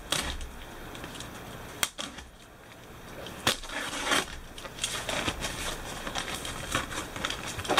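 Cardboard shipping box being torn open by hand. A couple of sharp snaps as tape and flaps give way, then a run of small crackles and rustles of cardboard and tape.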